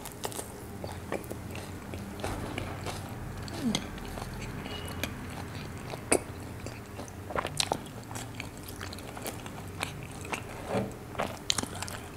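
Close-miked chewing of a mouthful of missi roti with creamy white chicken gravy: soft, wet mouth sounds with scattered short smacks and clicks, over a faint steady low hum.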